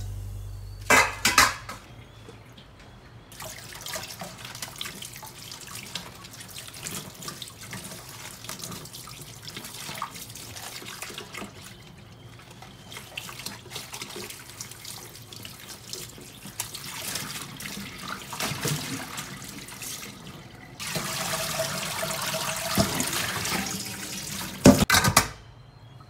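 Kitchen tap water running into a stainless steel sink and bowl as leaf lettuce is rinsed by hand, with a short clatter about a second in. The water gets louder for a few seconds near the end, then cuts off suddenly.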